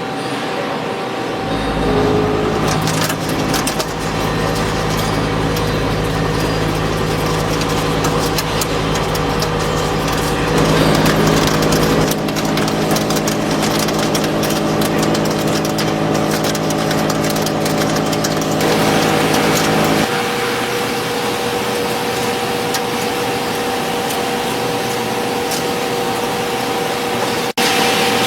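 CNC machine tool cutting metal: a steady whine and hum from the spindle and drives, with a dense crackle of chip-cutting over it. The hum's tones shift several times, and the sound breaks off for a moment near the end.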